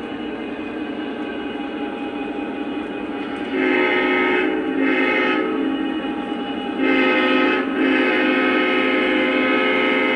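Lionel Legacy Conrail SD70MAC model locomotive's onboard sound system: a steady diesel engine drone, with four multi-tone horn blasts from a few seconds in, the last drawn out for a couple of seconds.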